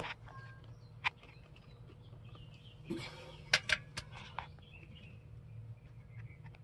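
A few sharp clicks and knocks from hand work on the window frame, one about a second in and three close together a little past three and a half seconds, over a low steady hum.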